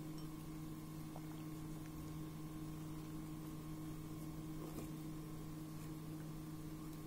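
Steady electrical hum, a low drone with a fainter higher tone above it, with a couple of very faint soft ticks.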